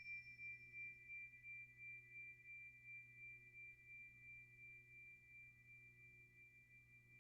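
Faint, high, pure tone of a tuning fork ringing on after being struck, slowly fading with a gentle pulsing in loudness.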